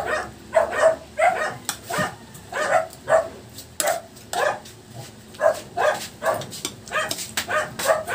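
A dog barking over and over, about two barks a second. There are a few light clinks of a spoon and fork against a plate and bowl.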